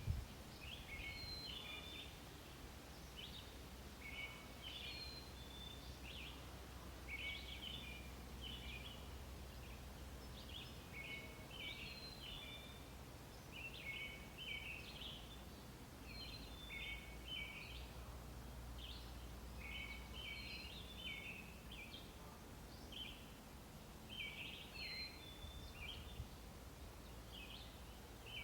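Songbirds singing faintly: short, high chirping phrases repeated every second or two, over a steady low rumble.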